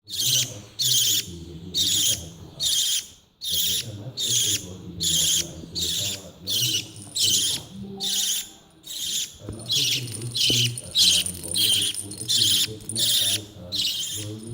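Baby budgerigar giving a steady series of short, raspy calls, about one and a half a second.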